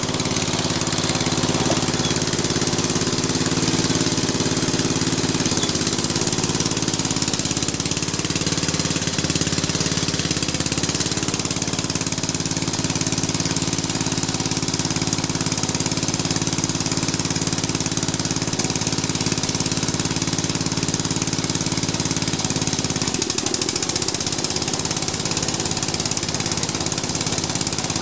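Snapper rear-engine riding mower's engine running steadily; a brief rattle comes about 23 seconds in, and after it the engine note changes.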